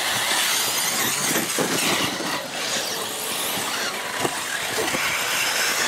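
Radio-controlled model race cars running around the track, their motors rising and falling in pitch as they accelerate and pass.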